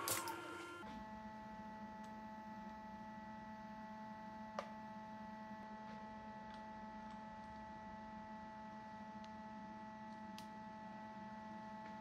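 Milling machine running steadily: a faint low hum with several steady whining tones above it. A short click sounds near the start and one light tick about four and a half seconds in.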